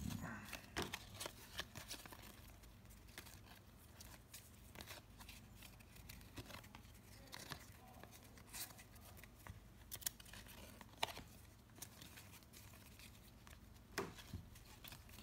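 1993-94 Upper Deck basketball trading cards being flipped through and slid one by one from one hand to the other: faint, irregular soft clicks and rustles of card stock.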